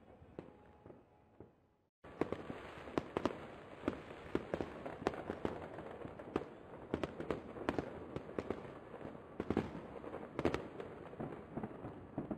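Fireworks aerial shells bursting: a few faint pops, a brief dropout about two seconds in, then a dense run of sharp bangs in quick succession.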